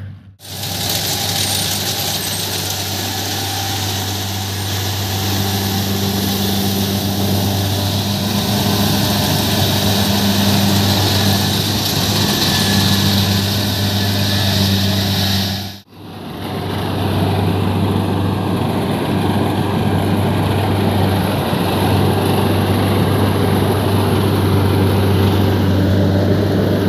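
Kubota DC-70 crawler combine harvester running under load as it harvests rice, its engine and threshing machinery giving a steady, loud drone. The sound breaks off for a moment about 16 seconds in.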